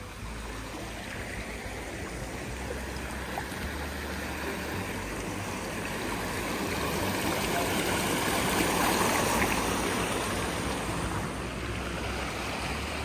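Shallow stream running over a rock slab and stones. The rushing water grows louder toward the middle and eases a little near the end.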